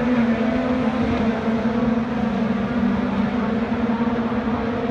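Engines of IndyCar race cars on the circuit, a loud drone that holds a steady pitch, dipping slightly about two seconds in.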